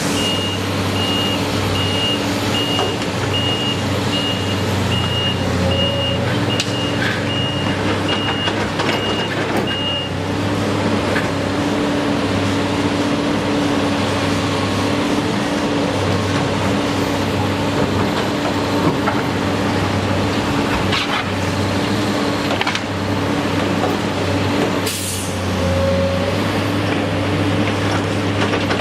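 A heavy vehicle's engine running steadily, with a reversing alarm beeping at an even pace for the first ten seconds or so. About 25 seconds in there is a short burst of hiss, like an air-brake release.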